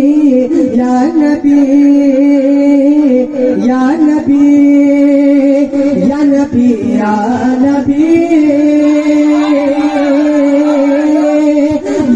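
Male voices singing an Urdu naat into microphones, wordless long held notes with ornamented, bending runs.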